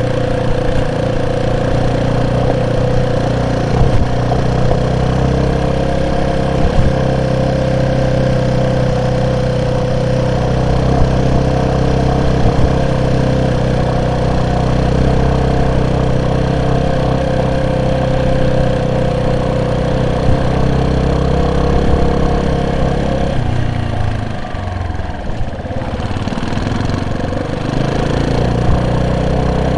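Vehicle engine running steadily under way, with a few short knocks. About three quarters of the way through, the engine note drops for a few seconds, as when easing off, then comes back.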